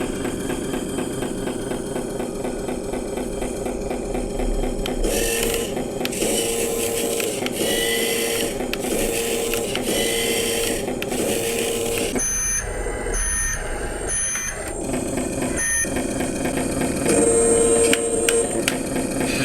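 Radio-controlled truck's electric motor and gearbox whirring steadily under load, with a run of short repeated electronic beeps from about a third of the way in and another set of higher beeps later.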